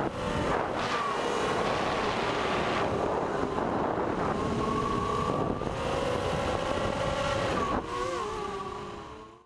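Racing quadcopter's four 1806 2300kV brushless motors spinning 6-inch carbon propellers: a buzzing whine that holds fairly steady and bends up and down in pitch with throttle changes, over wind rushing past the onboard microphone. It fades out near the end.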